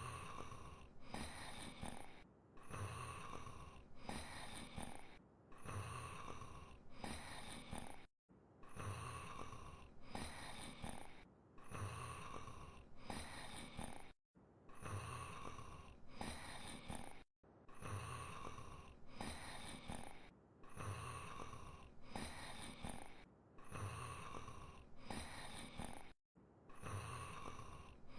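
A sleeping giant wolf from an anime snoring in a slow, regular rhythm, one snoring breath in and out about every two and a half seconds. The sound cuts out completely for a split second a few times.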